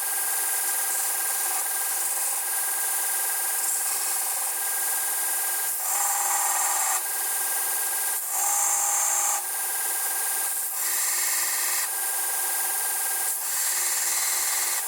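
Steel bolt handle of a Remington 700 being cut and shaped by a tool: a steady abrasive working sound, with three louder passes of about a second each in the second half.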